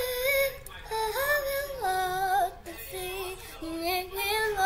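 A young girl singing, one voice on its own: a long high held note that ends about half a second in, then several short sung phrases with slides between the notes.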